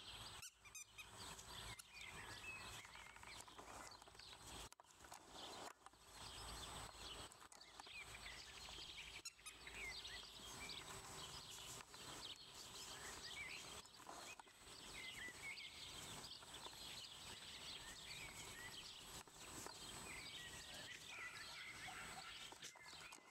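Faint outdoor ambience with small birds chirping on and off in the background, and a few soft knocks.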